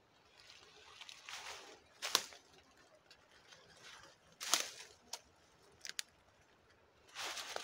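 Footsteps in dry fallen leaves: a few slow, uneven steps rustling through the leaf litter, with pauses between them and a couple of short sharp ticks.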